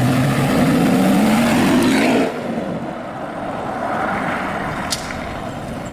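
BMW Z4 sports car engine revving, its pitch rising for about two seconds, then easing off to a quieter, steadier running noise.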